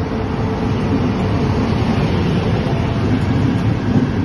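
ETR 500 high-speed diagnostic train 'Diamante 2.0' passing close by along a station platform: a loud, steady rumble of the train rolling through, slightly swelling as the coaches run past.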